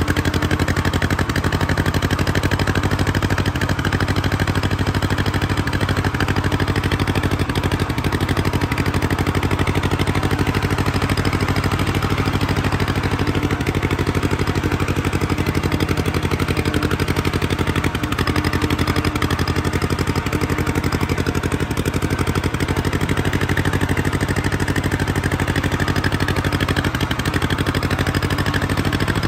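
1956 John Deere 420W tractor's two-cylinder engine running steadily under way, its exhaust firing in a fast, even pulse. The engine runs smoothly.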